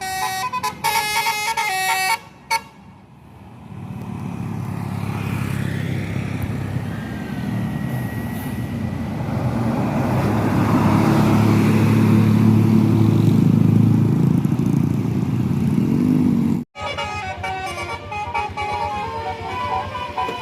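A tour bus's diesel engine passing close, growing louder to a peak and then cut off abruptly. Before and after it, a fast melody of stepping tones.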